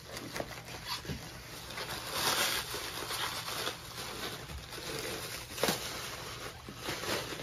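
Bubble wrap rustling and crinkling as it is pulled off a seat headrest, louder for about a second some two seconds in, with scattered crackles and one sharp crackle near the end.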